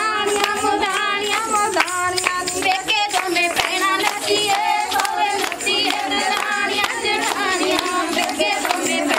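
Women singing Punjabi folk boliyan together to steady rhythmic hand clapping, as in giddha.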